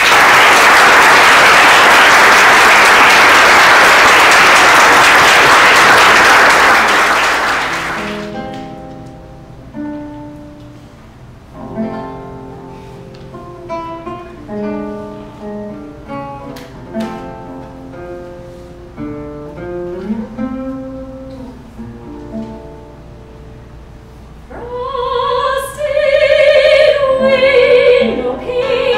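Audience applause for about the first eight seconds. A nylon-string classical guitar then plays a plucked introduction alone, and a woman's voice enters about 25 seconds in, singing in classical style over the guitar.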